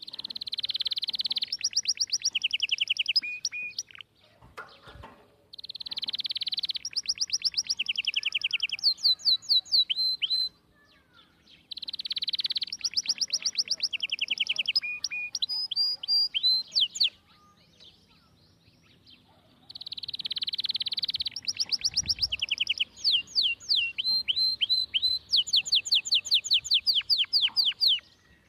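A bird singing in four long bouts, each opening with a buzzy note and running into rapid trills of sharp chirps, with short pauses between; the last bout is the longest.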